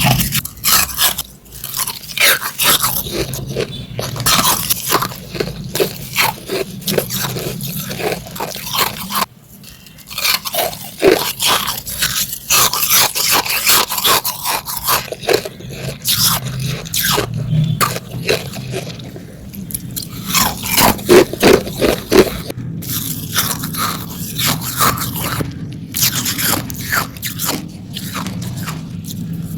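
Hard ice being bitten and chewed close to the microphone: a dense run of sharp, cracking crunches, with a short pause about a third of the way through and the loudest cracks about two-thirds in.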